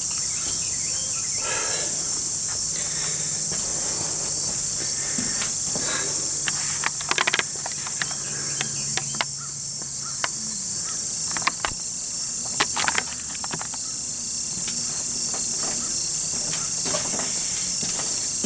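Steady high-pitched chorus of late-summer insects, an unbroken trill, with a few sharp clicks in the middle stretch.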